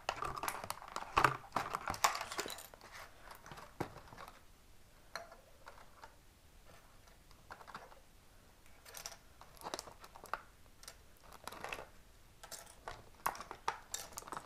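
A thin clear plastic packaging tray crackling and clicking as small plastic model parts are pried out of it, in irregular clusters of sharp clicks that are busiest in the first couple of seconds and again near the end.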